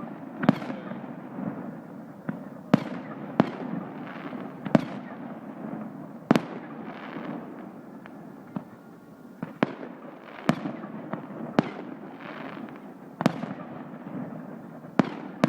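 Fireworks display: aerial shells bursting at irregular intervals, about one a second, each a sharp bang followed by a fading echo, over a continuous rumble of noise.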